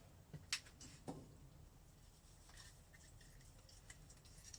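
Near silence with a few faint, sharp clicks, the sharpest about half a second in and another about a second in.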